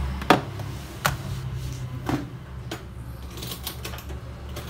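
Plastic back cover of a Lenovo G470 laptop being pried off, its clips snapping loose in several sharp clicks, the loudest about a third of a second in.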